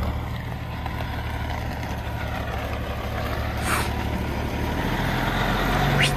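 Heavy-duty Peterbilt tow truck's diesel engine running at low speed as the truck creeps up, getting louder near the end as it comes closer. A brief high hiss cuts in about three and a half seconds in.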